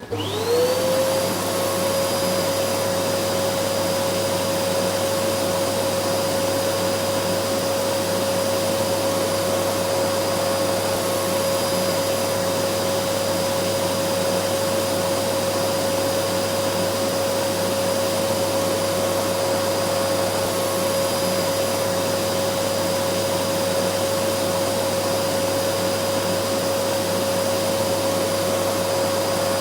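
Vacuum cleaner switched on and running up to speed: its motor tone climbs in pitch over the first second, then holds steady over a constant rush of air.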